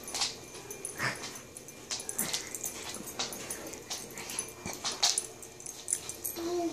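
Large dog right at the microphone, making irregular short breathy and rustling noises, with a brief high whimper near the end.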